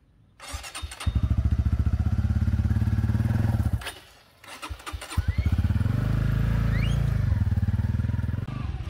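Honda Winner X motorcycle's single-cylinder engine starting and running steadily, falling quiet for a moment about four seconds in, then starting and running again.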